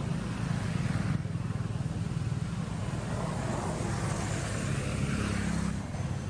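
Steady low rumble of a motor vehicle engine running, with a light hiss of noise over it; it eases off slightly near the end.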